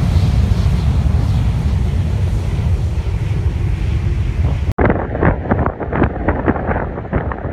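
Jet blast sweeping a beach: a loud, steady low rumble with heavy wind buffeting the microphone. About five seconds in it cuts abruptly to gusty storm wind hitting the microphone in irregular pulses.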